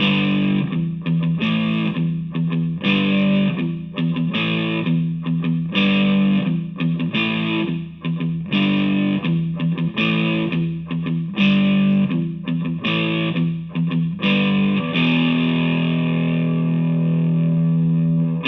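Electric guitar played through a distorted DigiTech GNX3 multi-effects preset: a riff of chords struck in short phrases with brief breaks, ending on one chord held ringing for the last few seconds.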